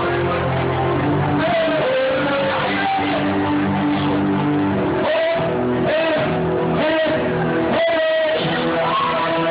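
Music with guitar and a wavering melody line, playing steadily without lyrics.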